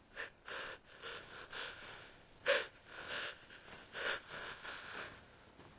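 Cartoon voice breathing hard in a string of short breathy gasps, about two a second, the loudest about two and a half seconds in.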